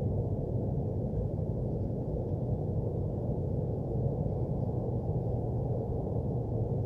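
Steady low hum and rumble of machinery noise from nearby businesses, unchanging in level, all low in pitch with nothing high above it.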